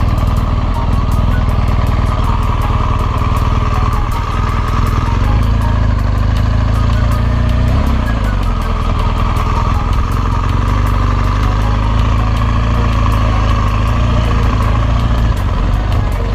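BMW R1200GS boxer-twin engine running steadily during a ride, its note shifting briefly about eight seconds in.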